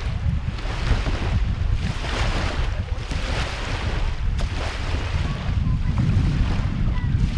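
Wind buffeting the microphone with a steady low rumble, over small lake waves lapping on a sandy shore, washing in about once a second.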